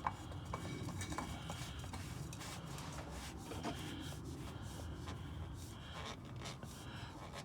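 Hands working a part, with faint rubbing and scattered small clicks and scrapes over a low steady hum.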